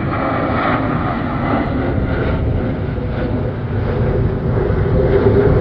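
Military fighter jets flying overhead, their jet engines making a steady rumble.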